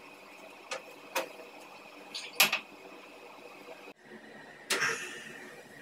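A few sharp clicks and knocks of cooking utensils against a chapati griddle (tawa), the loudest about two and a half seconds in; after a brief break, a short burst of noisier clatter near the end.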